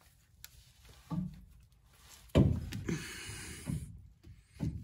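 Yukon Dura Grip differential carrier with its ring gear being worked by hand into a Dana 44 axle housing, being tried with thinner carrier shims. There is a soft knock about a second in, then a loud clunk and about a second and a half of metal scraping, and a few light clicks near the end.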